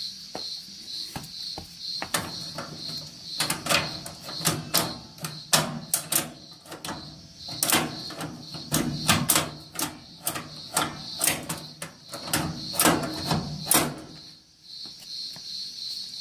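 Clattering metal clicks and knocks from a washing machine's loose, spring-mounted rear leg supports being worked by hand, coming in quick irregular runs from about two seconds in until a few seconds before the end.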